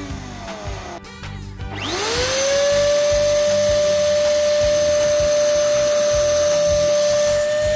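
Small electric power-tool motor whine winding down and stopping, then spinning back up about two seconds in and running at a steady pitch.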